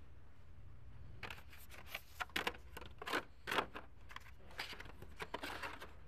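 Hot Wheels blister-pack cards being handled: an irregular run of sharp plastic-and-cardboard crackles and clicks, loudest about three and a half seconds in.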